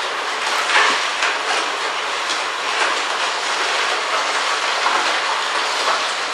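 Eight slow (masticating) juicers running at once, crushing carrots: a steady grinding noise with scattered short cracks and clicks as carrot pieces are fed in and pressed.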